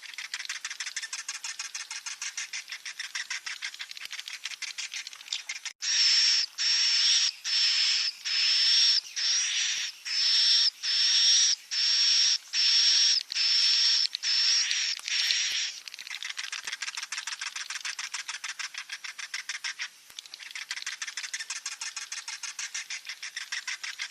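Swiftlet chicks calling: a fast, even stream of high chirping pulses, with a louder stretch in the middle of a dozen or so short, high, steady-pitched calls about half a second each.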